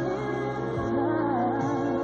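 Slow background music: a held, wavering melody line over steady accompaniment.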